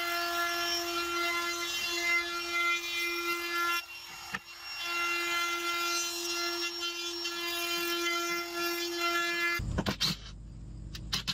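DeWalt cordless compact router with a 1/8-inch round-over bit running at speed, a steady high whine as it rounds over the edges of plywood pieces. It dips briefly about four seconds in, then carries on, and stops shortly before the end, followed by a few sharp knocks.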